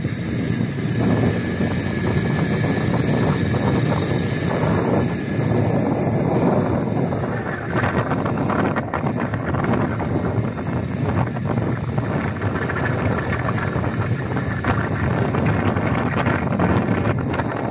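Quad bike engine running while riding over sand, mixed with steady wind noise buffeting the microphone.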